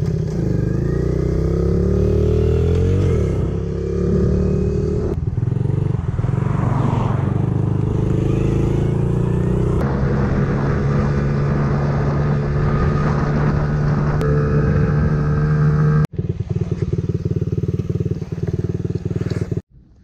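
Dirt bike engine running while ridden, its pitch rising and falling as it accelerates and changes gear. The engine note jumps abruptly a few times, and in the last few seconds it settles to a lower, steady pulsing.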